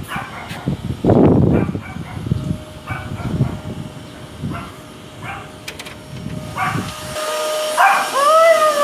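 Irregular rumbling and knocking handling noise. Near the end the sound cuts to a dog whining and howling in rising and falling pitch over a steady machine whine, typical of a grooming blow dryer.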